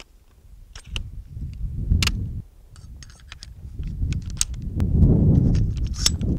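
Scattered metallic clicks and clacks of an M1 Garand rifle being handled while a grenade launcher and rifle grenade are fitted to its muzzle. Under them runs a low rumble that grows loudest about five seconds in.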